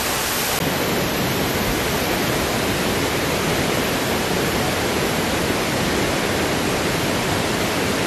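A large waterfall rushing steadily: an even, unbroken wash of falling-water noise.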